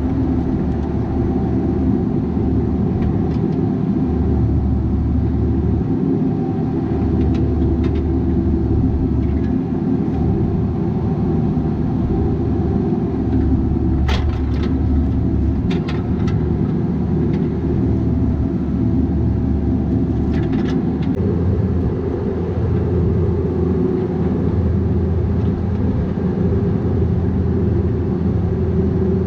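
Bobcat 337G mini excavator's diesel engine running continuously, its low note rising and falling as the load changes, with a few sharp knocks about halfway through.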